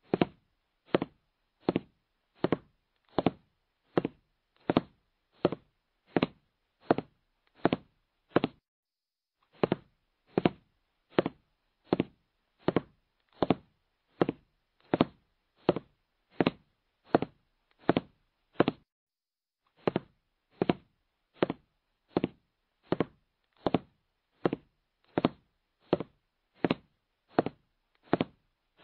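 Countdown timer sound effect: a steady knock-like tick about every three-quarters of a second, counting down the time to answer a quiz question, with a brief break near nine seconds and again near nineteen seconds.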